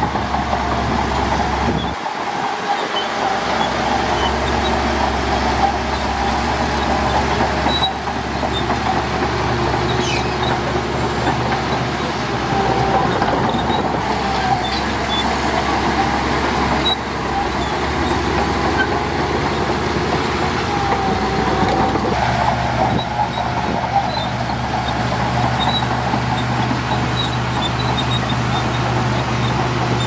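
Shantui crawler bulldozer's diesel engine running steadily under load as it pushes sand. The engine note shifts abruptly several times.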